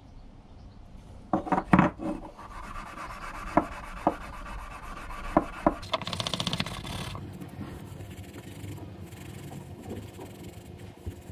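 Steel wool scrubbing a bare metal bicycle pedal body, a rasping rub that is strongest about six seconds in and then goes on more quietly. A few sharp knocks of parts being handled on the workbench come about a second and a half in, with scattered clicks after.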